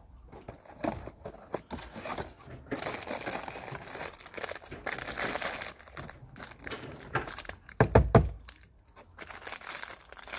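Plastic bird-food packaging crinkling and rustling as it is handled and opened, with two loud, low thumps close together about eight seconds in.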